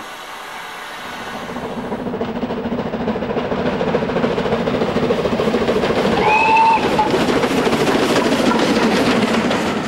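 Steam locomotive running and growing louder as it comes closer, with one short whistle blast about two-thirds of the way through.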